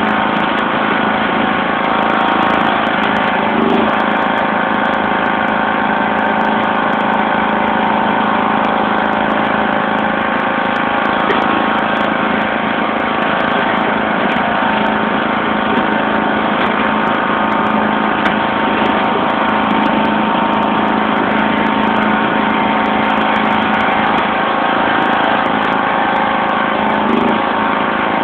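1991 John Deere LX176 lawn tractor's 14 hp overhead-valve engine running at a steady speed while the tractor pushes snow with its front blade.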